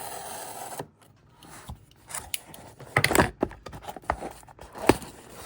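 A product box being cut and opened by hand: a steady scraping for about the first second, then scattered scrapes and rustles of packaging, and a sharp click near the end.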